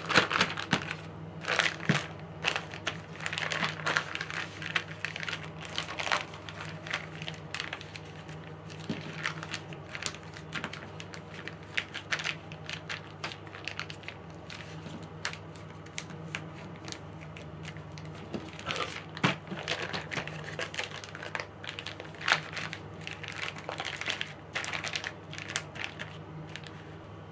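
Plastic Ziploc zipper bag crinkling and rustling in the hands as it is zipped shut and pressed flat, with irregular small crackles and clicks throughout.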